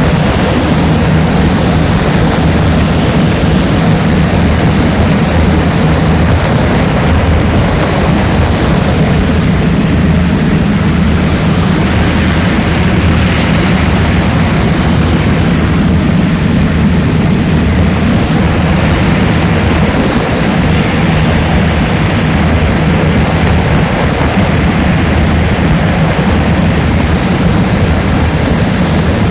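Propeller aircraft's piston engine running steadily at power, a deep even drone with rushing air noise over it.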